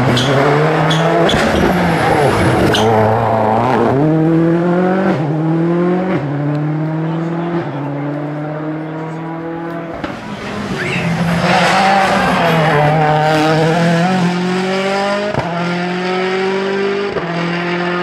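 Rally car engine at full throttle, climbing in pitch and dropping back at each quick upshift, working up through the gears several times, with a second loud surge of acceleration about eleven seconds in. Sharp cracks over the engine in the first few seconds.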